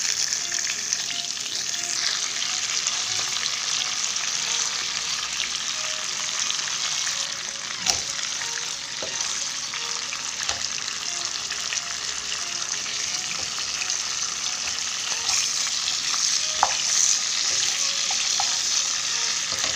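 Katla fish heads sizzling and crackling as they shallow-fry in hot mustard oil in a nonstick wok. A wooden spatula scrapes and knocks against the pan a few times as the heads are turned and pressed.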